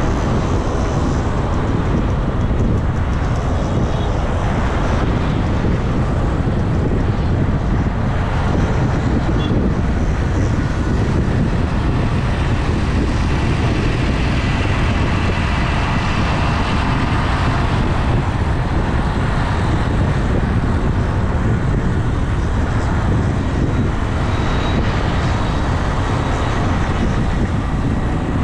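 Steady road and traffic noise from a vehicle driving through city traffic: a continuous rushing drone, heaviest in the low end, that holds level throughout.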